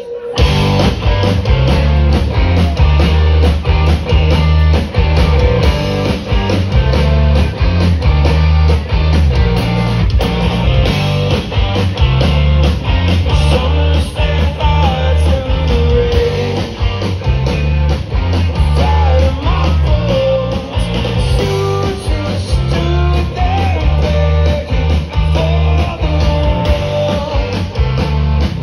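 A rock band playing loud live, with electric guitars, bass and drum kit, coming in abruptly at the start.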